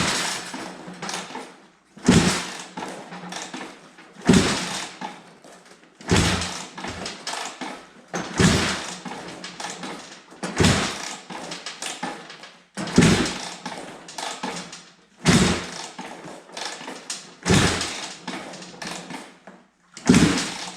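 2006 Suzuki RM250 two-stroke engine in regular sharp bursts, about one every two seconds. Each burst starts with a thump and dies away within a second or two.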